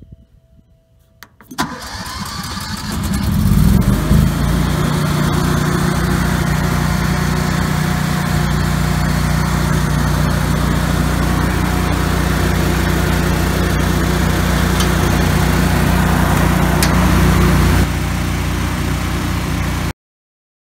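Cummins RS20A 20 kW standby generator's air-cooled 1000cc engine cranking about a second and a half in, catching, and settling into a steady run, started from the control panel for an exercise run. The sound cuts off suddenly near the end.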